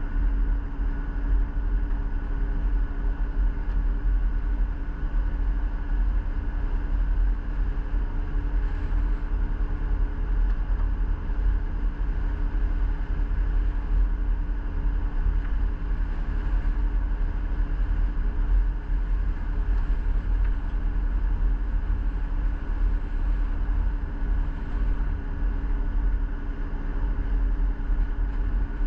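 A vehicle under way: steady engine and road rumble that holds level throughout.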